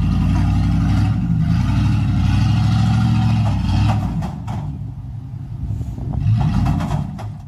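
Off-road vehicle's engine running hard under load, easing off about four seconds in, with a few knocks and clatters.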